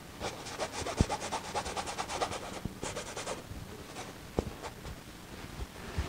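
A paintbrush scrubbing paint onto a stretched canvas in quick back-and-forth strokes, about eight a second, for some three seconds before stopping. A couple of light knocks, likely the brush or hand against the canvas or easel.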